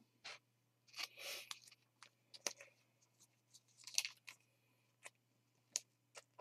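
Faint, scattered clicks and short rustles of baseball trading cards and foil pack wrappers being handled, with a brief crinkly swell about a second in and another near the middle.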